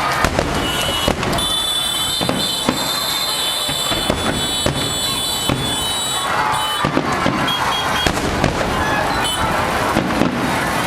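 A dense, continuous barrage of fireworks: rapid crackling and many sharp bangs, with high steady whistles over much of the first half.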